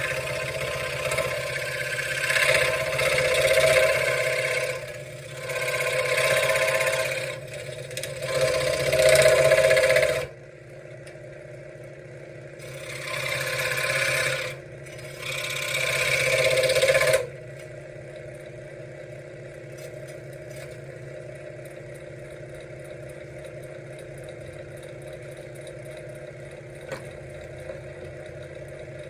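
Benchtop scroll saw running, its blade cutting wood in loud stretches over the first seventeen seconds or so. After that the machine keeps running unloaded with a steady hum.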